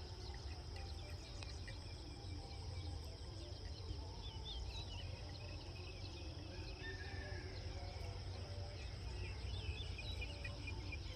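Countryside ambience: a steady high insect drone with many short, scattered chirps over it, and a constant low rumble underneath.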